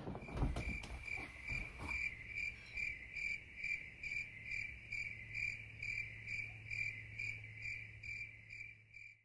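Cricket chirping at an even pace, about three short high chirps a second, over a low steady hum. A few soft knocks sound in the first two seconds.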